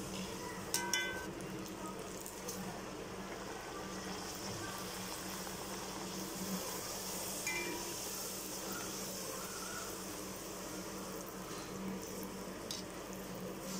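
Beetroot poori deep-frying in hot oil, a steady sizzle and bubbling, with a few light clinks of a metal slotted spoon against the pan as the poori is pressed and turned.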